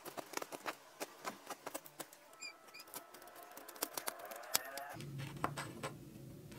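Small hand carving chisel cutting into a hardwood pistol grip, paring off chips: a quick run of crisp clicks and short scrapes. About five seconds in a low steady hum comes in.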